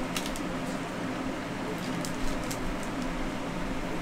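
Steady background room hum, with a few faint light ticks from trading cards being handled.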